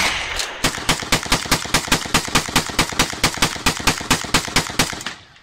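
A single loud shot, then rapid, evenly spaced gunfire from a rifle at about eight shots a second, stopping shortly before the end.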